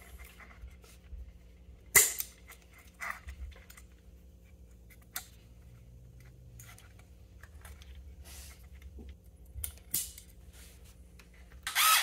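Small metal hardware being handled and fitted on a bearing carriage: scattered clicks and taps of a bolt, washer and parts, with one sharper click about two seconds in. Right at the end a hand driver starts on the bolt with a quick run of clicks.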